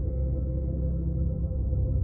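Ambient drone music: slow, sustained low tones held steady, with no beat.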